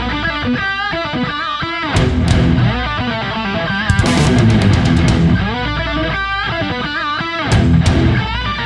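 Background heavy rock music: electric guitar playing bending melodic lines over drums, with sharp cymbal-like hits every couple of seconds.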